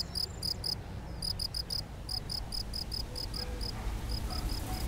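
Male European field cricket (Gryllus campestris) chirping by rubbing its raised forewings together: short, clear, high chirps of three to five pulses each, repeated in quick succession. The chirps grow fainter and more even near the end.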